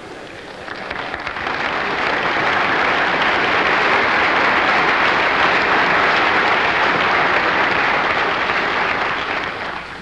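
Audience applauding in a lecture hall. The clapping swells about a second in, holds steady, and dies away near the end.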